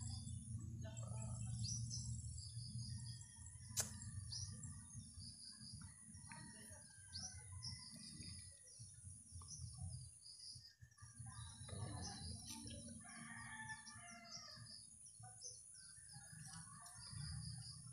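Faint birds chirping and calling over and over over a low steady hum, with one sharp click about four seconds in.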